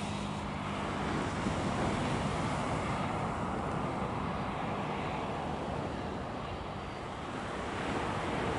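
Steady rushing roar of a Boeing 737-300's CFM56 turbofan engines as the airliner rolls down the runway after touchdown.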